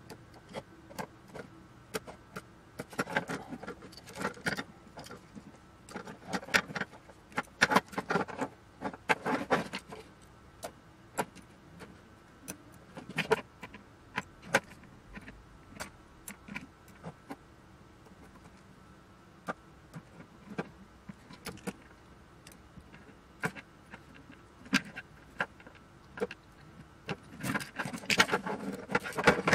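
Small cutters snipping through the wires and lacing of a cable harness, giving sharp irregular clicks over the rustle of wire bundles being pulled and handled. The clicking and rustling is busiest about three to ten seconds in and again near the end.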